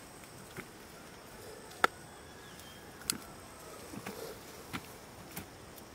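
Scattered sharp clicks and knocks, about seven of them at irregular intervals, the loudest just under two seconds in, over a faint steady hiss.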